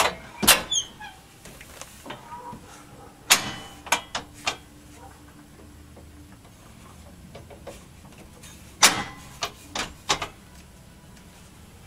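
Homemade retractable side step on a pickup being worked by hand: sharp metal clunks and clicks as it swings out and back, in three short clusters.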